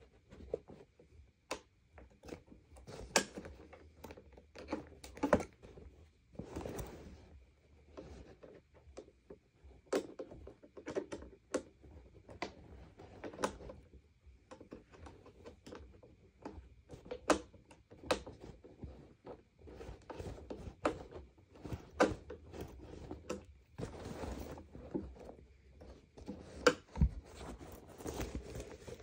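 Irregular clicks, taps and knocks, with some rustling, from hands and a screwdriver working on a Sanitaire upright vacuum as its handle screws are started.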